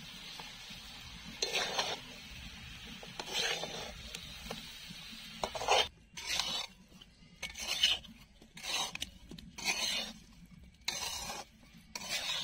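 Metal spatula scraping and stirring sugar-coated winter melon pieces around an aluminium karahi: a series of rasping strokes, about nine, coming more often in the second half. The syrup has cooked down so the sugar has dried to a powdery coating on the pan and fruit.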